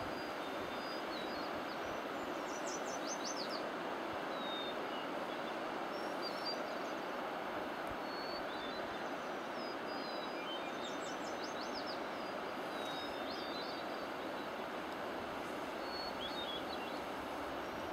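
A steady, even rushing noise of an open hillside, with small songbirds chirping and giving quick high trills, most clearly about three seconds in, around eleven seconds and near the end.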